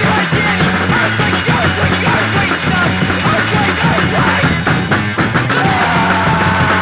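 Punk rock band playing loud rock-and-roll guitar riffs over a stepping bass line and drums.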